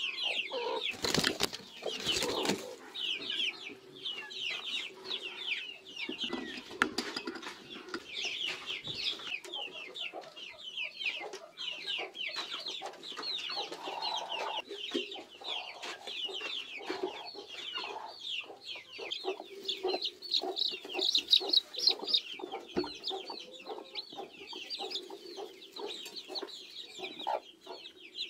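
Young chicks peeping continuously: rapid, high, falling cheeps, several a second. Underneath is a brooding hen's low clucking, and there are a few handling knocks near the start.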